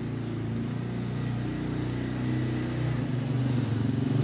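Sleeping cat snoring: a low, pulsing rumble that slowly grows louder and peaks near the end.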